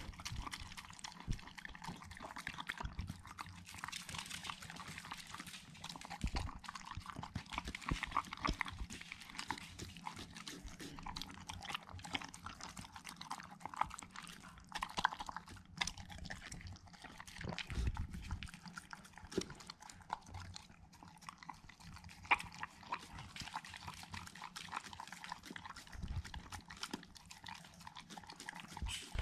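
Border collie eating moist food from a bowl: steady wet chewing and slurping with many small, irregular clicks.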